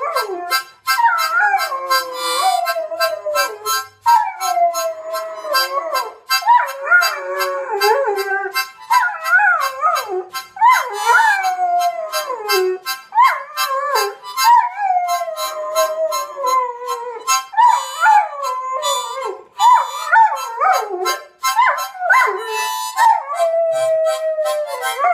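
A dog howling along to a harmonica. The dog's long howls slide down in pitch, again and again, over the harmonica's chords played in short, even rhythmic pulses.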